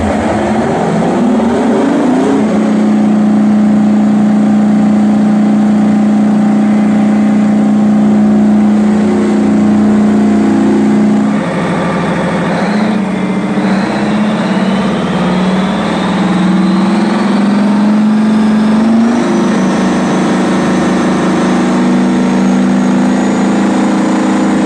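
Detroit Diesel 20V-149 two-stroke V20 diesel engine running hard. Its pitch rises over the first couple of seconds and steps up again about three-quarters through. A high whine climbs steadily in pitch through the second half.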